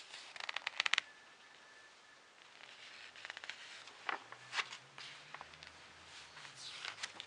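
Handling noise: a quick run of small clicks in the first second, then scattered light clicks and rustles.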